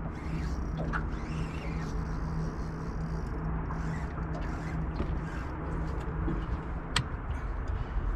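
Fishing reel being wound, creaking and ticking, while a hooked bream is played in, over a steady low hum and rumble. A sharp click comes about seven seconds in.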